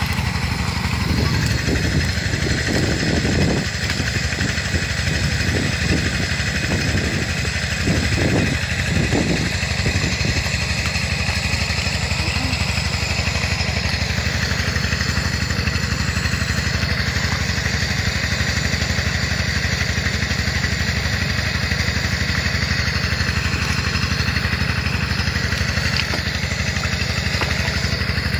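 A small engine running steadily at an even speed. During the first ten seconds there is irregular squelching from wet mud.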